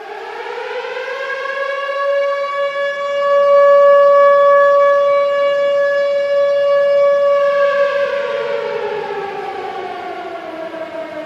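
Siren-type goal horn winding up, rising in pitch over the first couple of seconds, holding one steady tone for several seconds, then winding down with a falling pitch.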